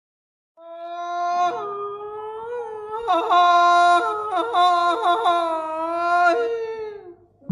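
A woman singing alone, unaccompanied, in long drawn-out notes that slide between pitches: the free-time sung opening of a Thai luk thung song. It starts about half a second in and fades out near the end.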